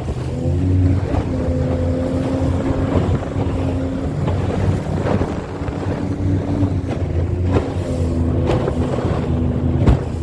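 An engine running steadily with a low hum and held pitched tones that come and go, under wind noise on the microphone. A sharp knock comes near the end.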